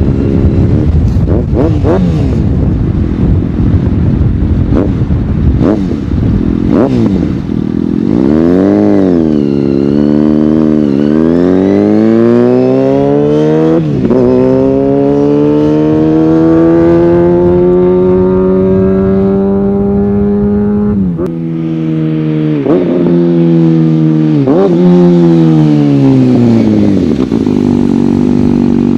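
2014 Kawasaki Ninja ZX-6R 636 inline-four with an aftermarket M4 GP-style exhaust, loud and revving. For the first several seconds it runs rough with short sharp blips. Then the pitch climbs, breaks at gear changes and climbs again in long pulls before falling away about two-thirds of the way in, and it settles to a steady idle near the end.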